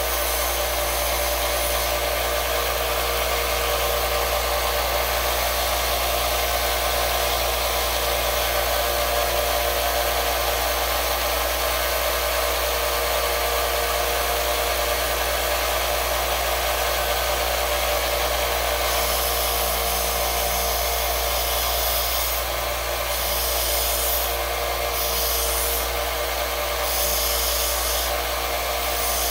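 Small benchtop belt sander running steadily, with a metal piece held against the running belt. In the last third the grinding hiss drops away and comes back every second or two as the piece is lifted off and pressed on again.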